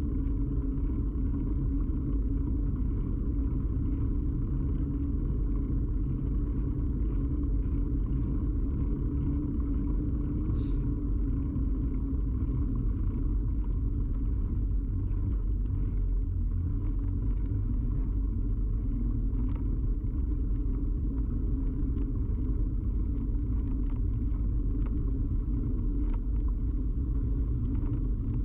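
Steady low rumble of a moving bicycle picked up through a camera mounted firmly on the frame: tyre and road vibration carried into the mount, with faint ticks now and then. A brief high squeak about ten seconds in.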